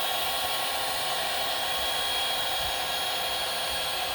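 Ryobi heat gun running steadily, its fan blowing hot air with an even whir and a thin high whine, shrinking heat-shrink tubing over soldered wire joints.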